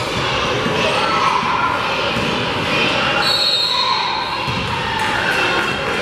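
Gymnasium crowd noise at a basketball game with a ball being dribbled on the hardwood. About three seconds in, a referee's whistle sounds once for under a second, stopping play for a foul and free throws.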